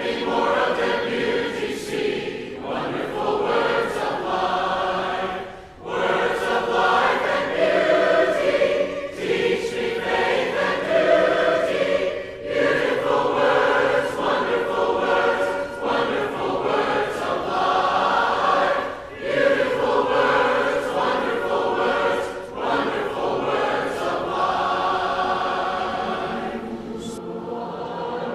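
Congregation singing the invitation hymn together, in phrases of a few seconds with short breaks between them.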